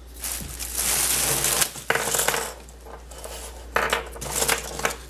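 Small plastic Heroclix miniature figures clattering and rattling against one another, in three bursts with sharp clicks.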